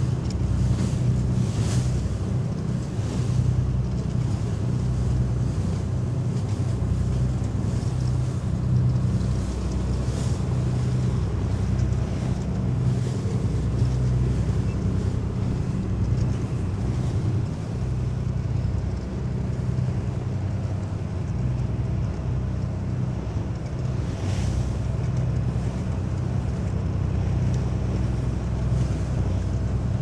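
Lifeboat's engine running steadily under way, a low even drone, with water rushing past the hull and wind. Now and then there is a short, louder hiss of spray.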